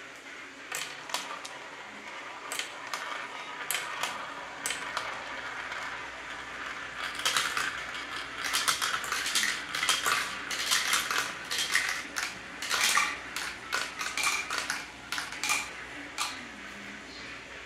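Marbles rolling through a plastic marble run, rattling along the tracks and round the funnel. Many sharp clicks as they strike the plastic pieces and one another, sparse at first and dense from about seven seconds to sixteen seconds in.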